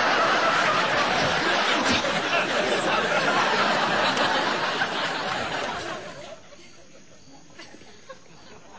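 Loud laughter mixed with voices, dying away about six seconds in.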